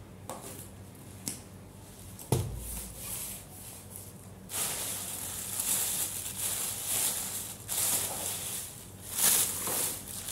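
Thin plastic shopping bags rustling and crinkling as hands rummage through them, uneven and swelling, starting about four and a half seconds in. Before that there is a single dull thump a couple of seconds in.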